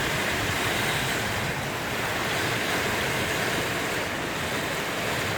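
Strong storm wind making a steady, even rushing noise.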